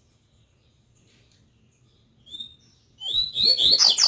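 Double-collared seedeater (coleiro) singing from inside its cloth-covered cage. One short note comes about two seconds in, then a loud, rapid phrase of quick falling notes near the end. The bird is in molt and still sings strongly.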